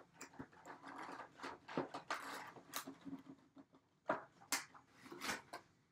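Cardboard box and its packaging scraping and rustling as a tightly fitting inner tray is worked out of it, with irregular sharp scrapes and knocks.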